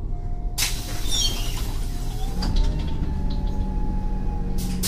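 Irisbus Cityclass Cursor CNG city bus heard from inside the passenger cabin: its Cursor 8 CNG engine runs with a steady low hum. A sudden hiss of air comes about half a second in, and a thin whine rises slightly about two seconds in as the engine note grows, then eases off.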